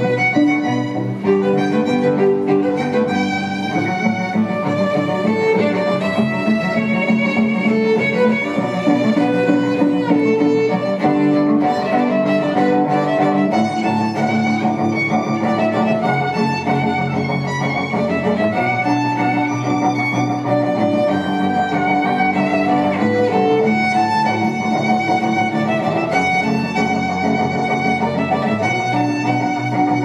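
Music led by a violin, playing a melody over sustained lower notes at a steady level.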